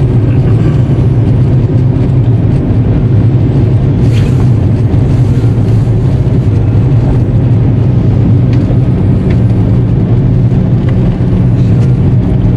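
Steady in-cabin drone of a 2002 Volkswagen Jetta TDI under way, its 1.9-litre four-cylinder turbodiesel and road noise heard from inside the car.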